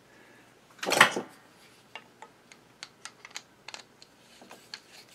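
Small steel hardware from a Singer 66 sewing machine's feed linkage clicking and tapping as a bolt is fitted through the bell crank linkage end with a screwdriver. There is a louder burst of handling noise about a second in, then a string of separate light metallic clicks.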